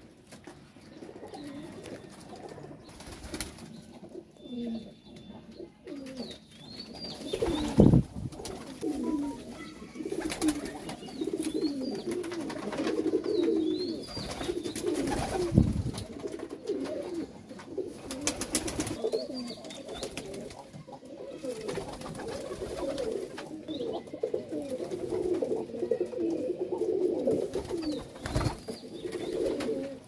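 Domestic pigeons cooing continuously, with a few sharp wing claps, the loudest about eight and sixteen seconds in.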